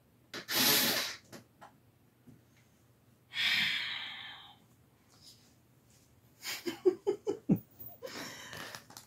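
A person's breath sounds: a sharp breathy exhale under a second in, a longer sigh about three and a half seconds in that fades away, then a string of short breathy bursts, partly voiced, toward the end.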